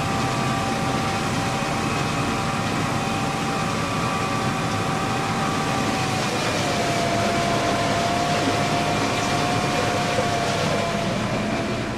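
Fendt tractor running, a steady engine sound with a held whine that drops a little in pitch just past halfway.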